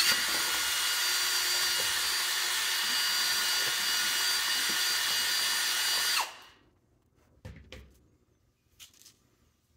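Cordless drill running a bit steadily in a hole in a PVC end cap, shaving down a ridge left by a step bit so a cable gland will thread in. It runs with a steady whine for about six seconds, then winds down and stops. Two light knocks follow.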